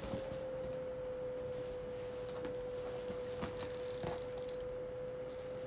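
A steady, pure whistle-like tone, with a few faint clicks partway through.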